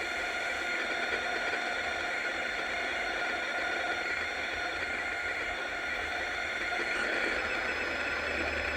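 1965 Arvin battery-powered transistor radio hissing with static from its speaker while tuned between stations, with a few faint steady whistling tones in the hiss.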